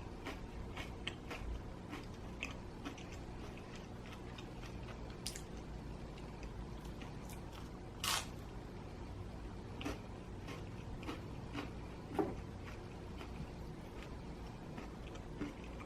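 A person chewing and biting into extra-crispy pizza close to the microphone: faint crunching and wet mouth sounds, with louder crunches about eight and twelve seconds in.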